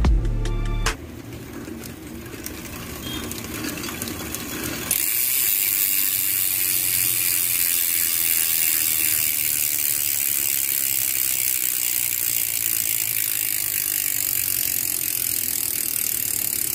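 Rear bicycle freehub's pawls ratcheting as the wheel freewheels, the clicks so fast they merge into a loud, steady buzz that starts about five seconds in.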